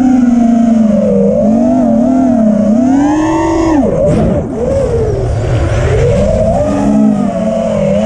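Brushless motors and propellers of an Armattan Rooster FPV freestyle quad (Cobra CP2207 2450KV motors) whining, the pitch swinging up and down with the throttle. About three and a half seconds in, the whine climbs, then drops sharply as the throttle is cut, and a rush of wind and prop wash follows for a couple of seconds before the whine picks up again.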